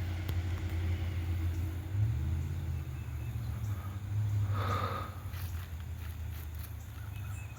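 Steady low engine drone that steps up slightly in pitch about two seconds in, with a brief hiss a little before the five-second mark.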